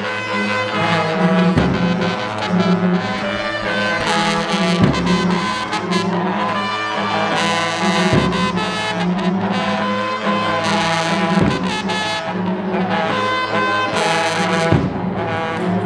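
Long brass horns of Shembe worship blowing held, overlapping notes, with a bass drum struck about every three seconds, accompanying a shield-and-stick dance.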